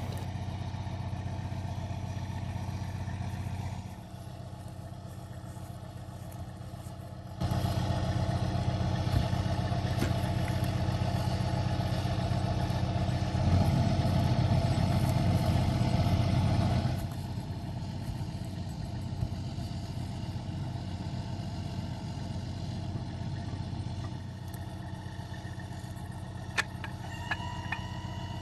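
A semi truck's diesel engine running steadily at low revs, louder for a stretch in the middle, with a few short high tones near the end.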